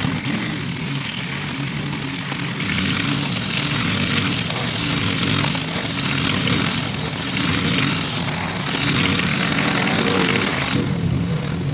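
Gasoline lawn mower engine running steadily while mowing grass, with its bagger collecting the clippings. The high cutting hiss eases briefly near the end.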